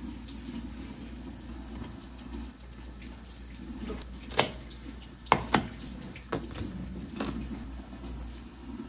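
Water running steadily, with several sharp clinks or knocks between about four and seven seconds in.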